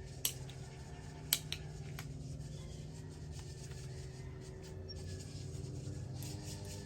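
A few sharp clicks of small gear being handled, two louder ones about a second apart near the start, over a steady low hum.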